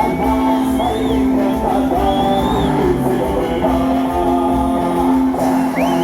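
Music playing for the fountain show: a song with held melody notes and singing, with a few short high shouts or whistles over it.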